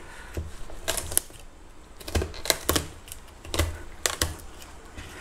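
Kitchen knife cutting through a John Dory's bones and spines and knocking against a plastic cutting board: about eight sharp clicks and knocks, irregularly spaced.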